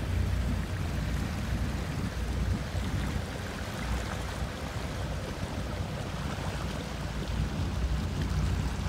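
Motorboat under way at low speed: a steady low engine rumble beneath the rush and splash of water along the hull.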